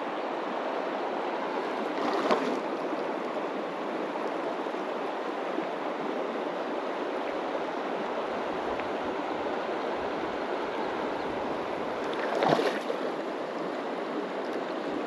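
Creek water rushing and babbling steadily over a rocky bed, with two brief louder noises, one about two seconds in and one near the end.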